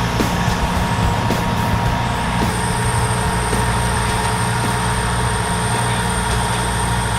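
Bulldozer's diesel engine running steadily under load.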